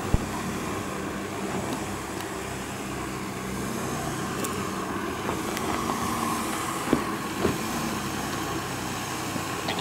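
Volkswagen Touareg SUV engine running steadily at low revs as it crawls over a rocky track, with a couple of short knocks near the end.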